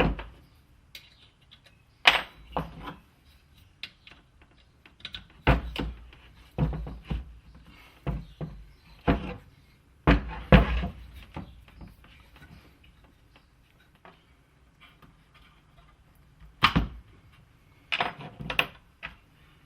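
Irregular knocks and clunks of parts being handled and set down while an air framing nailer is taken apart by hand, about a dozen with quiet gaps between them, some in quick pairs.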